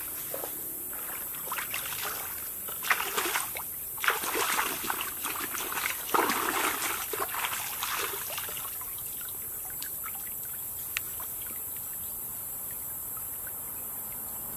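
Water splashing and dribbling in a shallow stream as hands scoop and wash in it, in several bursts over the first eight seconds or so. After that it goes quieter, with one sharp click.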